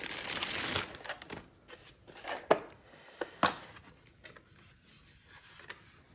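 Packaging crinkling for about a second as kit parts are unpacked, then two sharp knocks about a second apart as parts are handled and set down.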